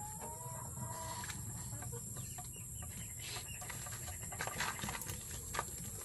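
A faint animal call lasting about a second, followed by scattered short clicks and knocks over a steady low rumble.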